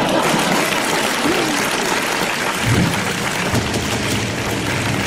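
Studio audience applauding, with a low sustained game-show music bed coming in about halfway through.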